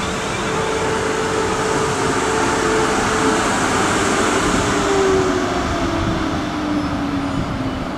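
South Western Railway Class 450 Desiro electric multiple unit moving along the platform, with a whine that falls steadily in pitch over a rumbling rush of train noise that swells towards the middle.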